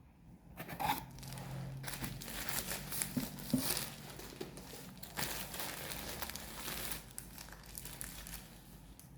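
Packaging of a book parcel being handled and unwrapped, with continuous crinkling and crackling and some tearing.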